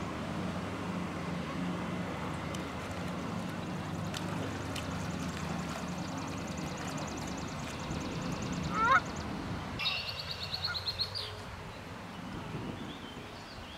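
Canada geese and goslings calling over a steady low background hum. About nine seconds in there is a short rising call, and a second later a run of rapid, high-pitched peeping.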